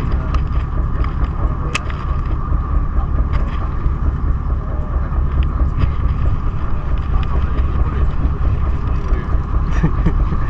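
Boat engine running with a steady low rumble and a faint steady whine over it.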